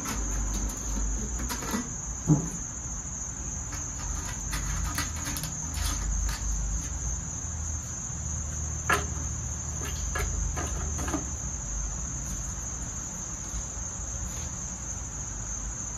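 Steady high-pitched insect trill of crickets, with a low rumble underneath and a few scattered clicks and knocks from handling the snowblower and fuel can.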